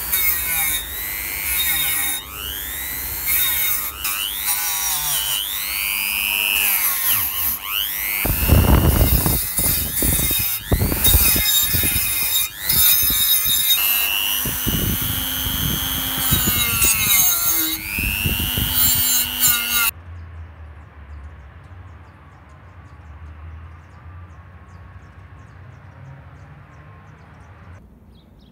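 Corded rotary tool with a wire wheel brushing rust off a rusty steel rake head: a scratchy, high whir whose motor pitch rises and falls again and again as the wheel is pressed on and eased off. It cuts off suddenly about two-thirds of the way through, leaving only faint low background noise.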